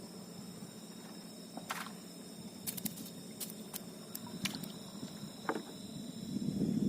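Night insects keep up a steady high-pitched chorus over a low background rush. About eight sharp clicks and small splashes come irregularly through the middle. A louder low rushing sound swells near the end.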